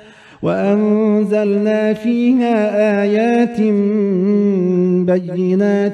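A male reciter chanting the Quran in Arabic in the melodic tajwid style, holding one long, ornamented vowel that wavers up and down in pitch. A short breath comes at the very start before the note begins.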